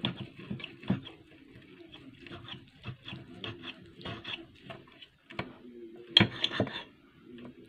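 Table knife sawing back and forth through a cooked steak, scraping and clinking against a plate, with the fork tapping the plate. The loudest scrapes and clatter come about six seconds in.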